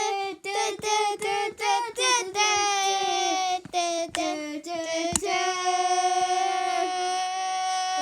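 A child singing a short tune: a run of quick separate notes, then one long held note from about five seconds in.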